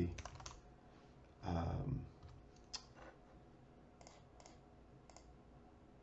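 A handful of separate, sharp computer keyboard and mouse clicks, irregularly spaced, as a component is searched for and picked from a software menu. A brief murmur of a man's voice comes about a second and a half in.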